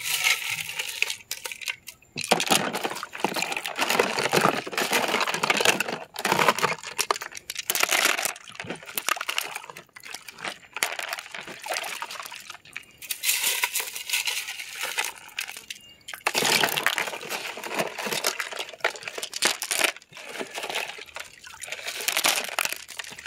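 Water splashing and sloshing as tumbled stones are swished in a bucket to rinse off the polish, with scattered clicks of stones dropped into a plastic colander. The splashing comes in irregular bursts every few seconds.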